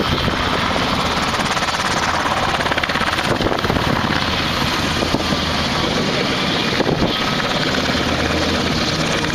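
Black Hawk helicopter's rotors chopping and turbines running as it comes in low and sets down, then runs on the ground with its rotors turning, at a steady loud level.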